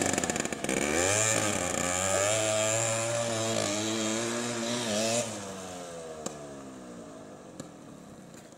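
Mini bike's small engine revving up and down as it is ridden away, the pitch rising and falling with the throttle. About five seconds in it drops off and fades steadily with distance.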